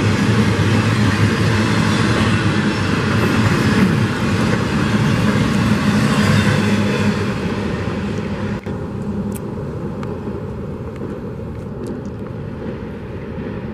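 Freight train of trailer-carrying flatcars rolling past close by: steady rumble of wheels on rail. About two-thirds of the way through the noise drops and thins as the last car passes and the train rolls away.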